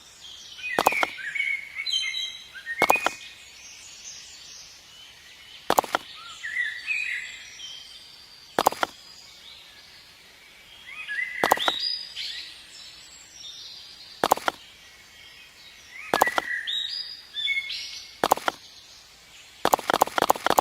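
Small birds chirping in short twittering calls, with a sharp tap or click about every two to three seconds and a quick run of taps near the end.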